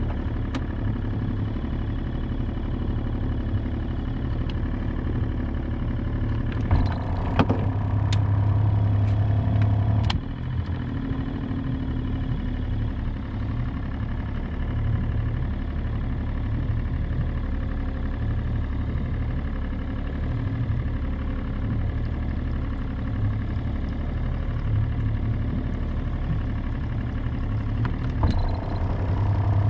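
A boat's engine running steadily with a low hum. It grows louder for a few seconds about seven seconds in and again near the end, with a few sharp clicks around the first rise.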